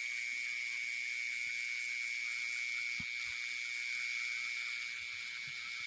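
Night insect chorus: a steady high trill over a dense, shrill hiss, with two faint low knocks about three seconds in.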